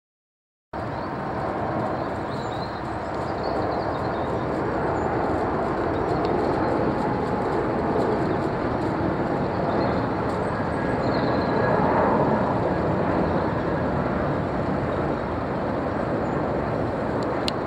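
Jet noise from an Airbus A380-861's four Engine Alliance GP7200 turbofans, heard from the ground as the airliner passes overhead on approach with its gear down. A steady, loud rush that cuts in under a second in and grows a little louder around the middle.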